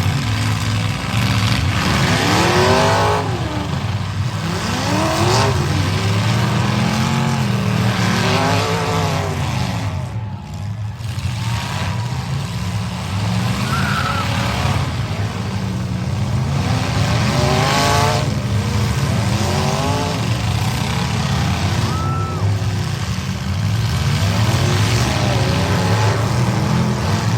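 Several demolition derby trucks' engines revving hard, over and over, the pitch climbing and dropping every second or two over a steady engine drone.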